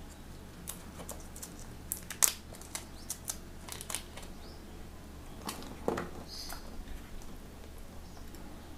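Handling noise from a plastic container and packaging being readied: scattered light clicks and taps with some plastic crinkling, the sharpest click about two seconds in.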